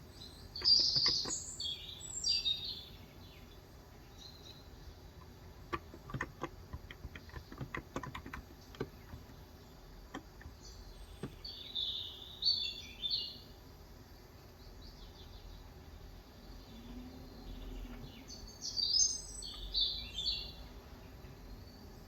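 Birds chirping in three short bursts, at the start, about halfway through and near the end; these are the loudest sounds. Between them, short bursts of key clicks from typing on a Cox Endeavor capacitive (contactless) keyboard with 35 g switches, thickest a quarter to halfway through.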